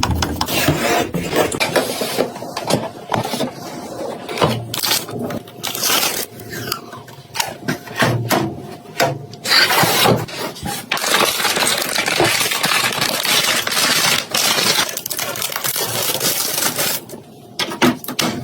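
Irregular clicks, knocks, scrapes and rubbing of computer parts being handled and fitted together during a PC assembly.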